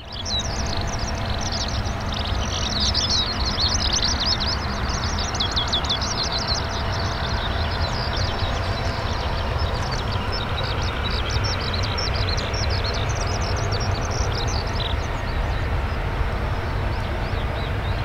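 Steady low rumble and hiss of a Boeing 737-800's CFM56-7B jet engines at low power as the airliner lines up on the runway. Birds chirp high above it for most of the first fifteen seconds.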